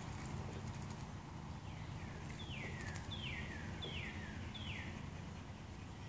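A songbird whistling a series of four clear notes, each sliding down in pitch, about one every 0.7 seconds from about two seconds in, over a steady low hum.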